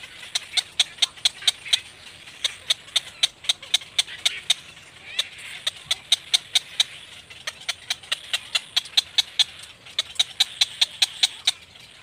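Rapid, sharp clicking calls from cormorants at a nest with chicks, about five a second, in runs of a couple of seconds broken by short pauses.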